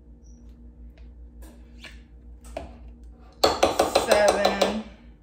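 A metal spoon scraping soft butter spread out of a plastic tub and tapping lightly as scoops go into a mug, a few separate clicks. About three and a half seconds in comes a much louder, rapidly rattling burst lasting about a second and a half.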